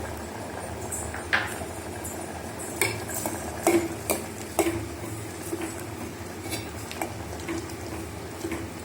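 A metal spoon stirring dal in a cooking pot, with irregular clinks against the pot's sides over a steady low background.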